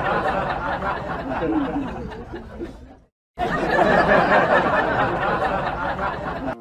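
Several people laughing and chattering together. It cuts out briefly about three seconds in, then starts again.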